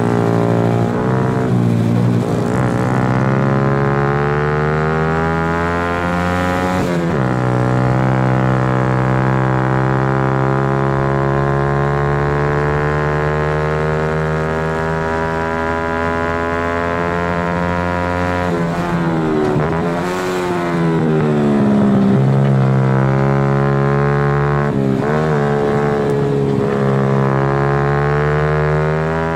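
Honda Super Cub race bike's single-cylinder four-stroke engine at racing revs, recorded on board. The note climbs slowly for about ten seconds, and several times it drops sharply and picks up again as the throttle is closed and reopened.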